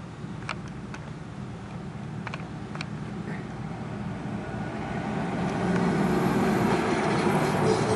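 Road traffic passing close by: an SUV and then a pickup truck driving across a grade crossing. The tyre and engine noise builds from about halfway through over a steady low rumble.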